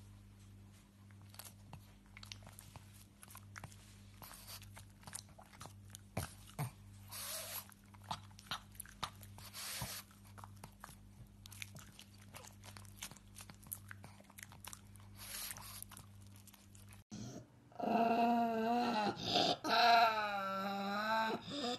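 A pug chewing banana: soft, scattered wet clicks and smacks of mouth and teeth. About 17 s in, a second pug starts growling and grumbling loudly in wavering, pitched moans while guarding a toy.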